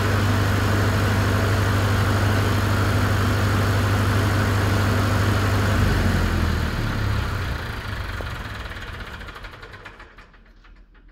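Diesel generator set running steadily at constant speed, then shut down about six seconds in: the engine note drops and it runs down over the next few seconds. The last few slowing strokes fade out near the end.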